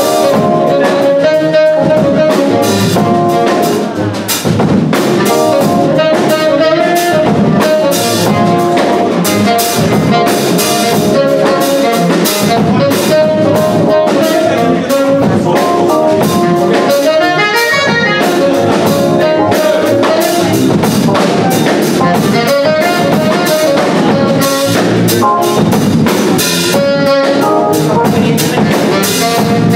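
A jazz big band playing live: drum kit keeping a busy beat under a horn section of saxophones, trumpets and trombones, with electric bass and guitar. The band dips briefly about four seconds in.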